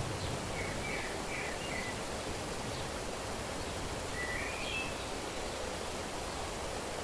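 Natural outdoor ambience: a steady rushing background with a small bird calling, a quick run of chirps about a second in and a rising phrase a little after four seconds.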